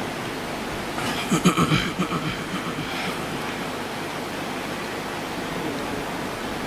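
Steady hiss of a public-address microphone and hall ambience during a pause in recitation, broken about a second in by one brief vocal sound lasting under a second.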